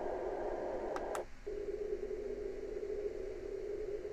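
Alarm clock's built-in speaker playing a steady rushing noise sleep sound. About a second in, two clicks come from its sound-select button and the track switches to a lower, narrower steady noise.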